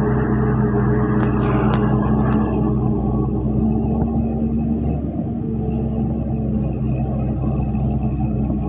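Crawler tractor's engine running steadily under load as it tills a flooded rice paddy.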